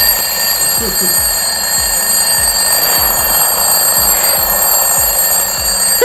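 Three quartz twin-bell alarm clocks ringing at once, each clock's hammer rattling rapidly between the two metal bell cups on its top, very loud.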